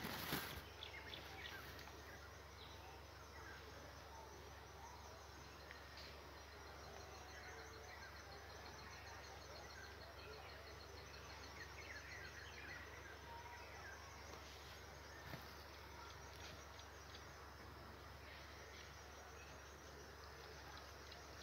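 Faint outdoor ambience with insects chirping in fast, even pulses high in pitch, now and then with a few soft ticks.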